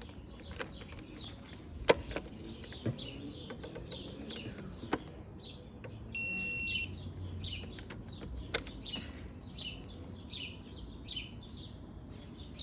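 Birds chirping steadily, with a few sharp tool clicks as a torque wrench works the oil filter housing cap, the loudest about two seconds in. A short electronic beep sounds about six seconds in.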